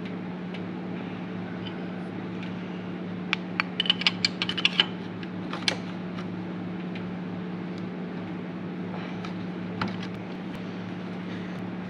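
Light metallic clicks of a wrench on the brass fitting of a coolant temperature sensor as it is tightened into an LS3 cylinder head. There is a quick run of clicks about three to five seconds in, then a couple of single clicks later, over a steady low hum.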